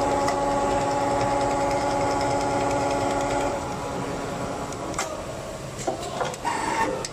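Richpeace automatic template sewing machine running at speed with a steady whine, which stops about three and a half seconds in. Near the end come a few sharp clicks and short whirs from the machine.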